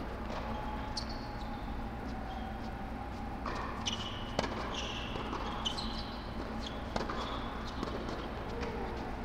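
Tennis rally on an indoor hard court: racket-on-ball hits come every second or so, with the sharpest one about four seconds in. Short high shoe squeaks fall between the hits, over a steady low hum.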